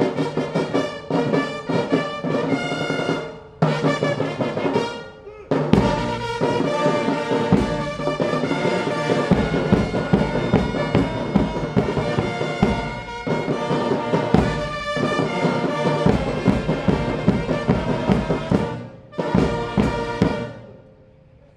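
Military brass band playing, with trumpets, trombones and bass drums. The music breaks off briefly twice in the first six seconds and stops shortly before the end.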